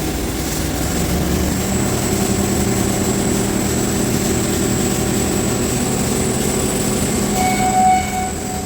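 TIG welding arc at about 175 amps, a steady buzzing hum with hiss and a constant high whine, as a root pass is laid on pipe. Near the end a brief louder tone rises over it.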